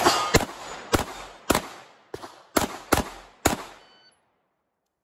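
A string of about eight pistol shots fired in quick succession, roughly half a second apart, each with a short echo off the berm. The sound cuts off suddenly about four seconds in.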